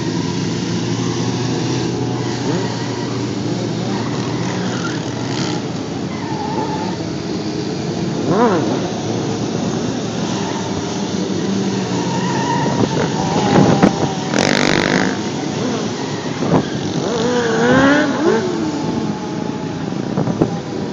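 Several motorcycle engines running and revving: a steady engine drone under repeated revs that rise and fall in pitch, the loudest burst about two-thirds of the way in.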